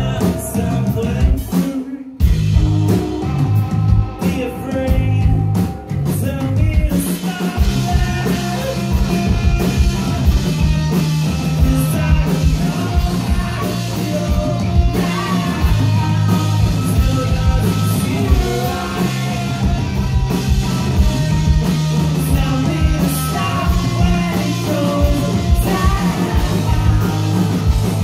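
Live rock band playing: electric guitars, drum kit and singing. The music breaks off for an instant about two seconds in, and the full band comes in denser about seven seconds in.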